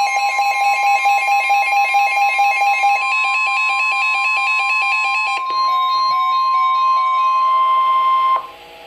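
NOAA Weather Radio warning alarm: a steady, loud single tone of about 1 kHz that announces a warning broadcast. For the first five seconds a fast, repeating electronic beep pattern plays over it. The tone cuts off abruptly near the end, leaving a faint hum.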